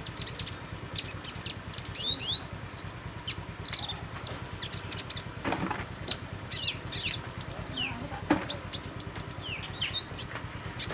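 A small songbird giving rapid, high-pitched chirps and short downward-sweeping twitters, in quick clusters with brief gaps.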